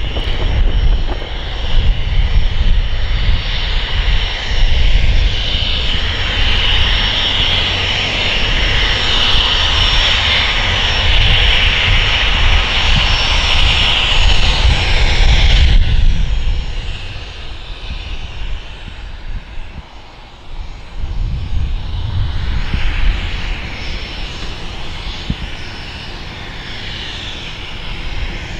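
Cessna Citation Mustang's twin turbofan engines running as the light jet rolls along the runway: a steady high whine over a low rumble. About halfway through, the whine drops away abruptly and the sound goes on quieter.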